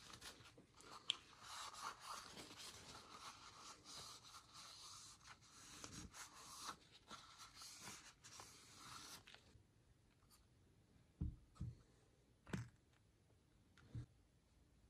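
Paper towel rubbing and rustling against a rubber brake caliper dust boot as it is wiped, for about nine seconds. Then four soft knocks.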